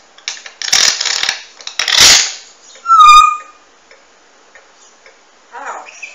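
African grey parrot vocalising: two noisy, unpitched sounds in the first two seconds, then a short steady whistle about three seconds in, the loudest sound. Near the end it says 'aw hi' in a mimicked voice.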